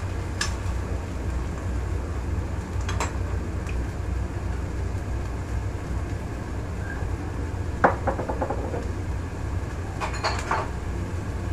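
A few clatters of a wooden spatula and a sauce bottle against a steel wok and the stovetop, the loudest knock about eight seconds in, over a steady low kitchen rumble.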